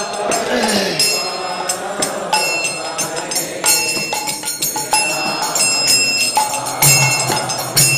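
Kirtan accompaniment between sung lines: metal hand cymbals (kartals) or bells struck in a steady rhythm, ringing between strokes. A sung note falls away in the first second.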